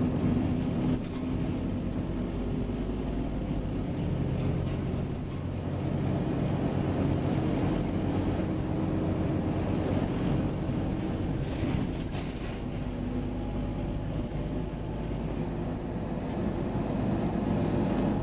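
Scania Omnicity double-decker bus's diesel engine running steadily as the bus drives, its low engine note shifting in pitch a couple of times.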